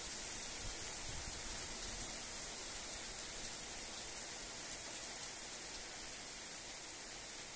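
Heavy rain falling steadily from a hurricane, a dense even hiss with a few faint taps.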